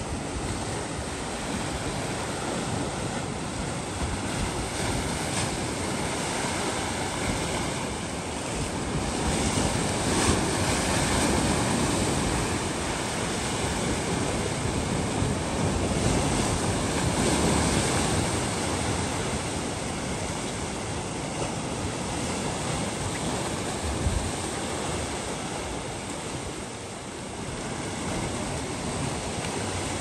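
Sea surf breaking and washing over a rocky shore, a steady rush that swells louder as bigger waves come in, around a third of the way through and again past the middle.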